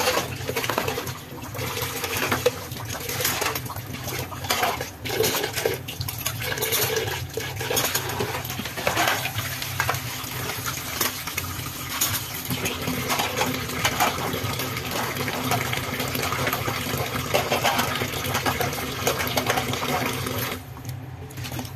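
Tap water running into a stainless steel sink while dishes, a plastic container and a metal pot are rinsed and handled, with repeated clinks and clatter of crockery, cutlery and metal against the sink. The rush of water drops away near the end.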